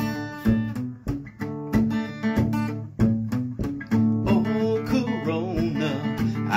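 Acoustic guitar strummed in a steady country rhythm, about two strums a second, as the intro to a song. About four seconds in, a man's voice starts singing over the guitar.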